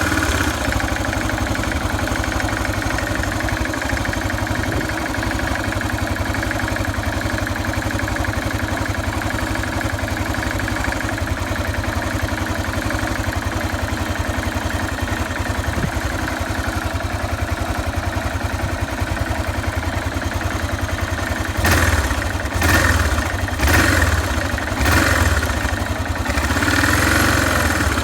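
Yamaha XT 600 (43F) single-cylinder four-stroke engine idling steadily while cold. Near the end the throttle is blipped about four times, about a second apart, then opened once more in a longer, gentler rev.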